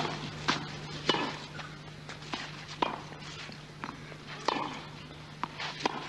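Tennis rally on a clay court: sharp racket strikes and ball bounces trading back and forth, about one every half second to second. A steady low hum runs underneath.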